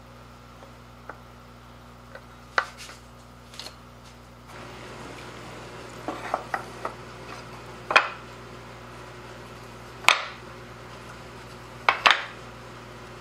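Hard wooden padauk marimba keys being handled on the locating pins of the case, giving a few light clicks, then a series of sharp wooden knocks and clatters, the loudest about two-thirds of the way through and a close double near the end.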